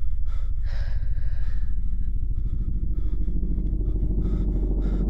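A steady deep rumble, with short soft noises over it now and then.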